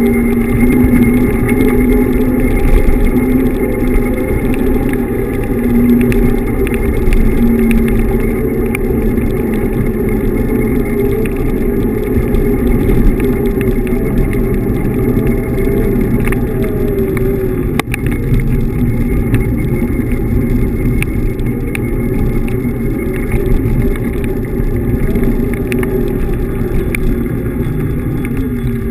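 Riding noise from a Xiaomi M365 Pro electric kick scooter on pavement: a steady low rumble of tyres and wind on the microphone, with a faint tone that drifts in pitch, amid passing car traffic.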